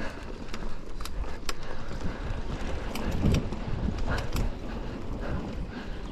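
Mountain bike ridden over rough ground: steady tyre rumble with irregular sharp clicks and rattles from the bike, and wind on the microphone.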